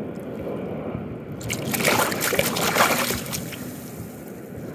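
Water sloshing around a landing net holding a hooked pink salmon at the surface, with a burst of louder splashing about a second and a half in that lasts about two seconds.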